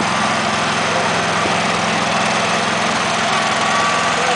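Small ride-on garden tractor's engine running steadily as the tractor drives along.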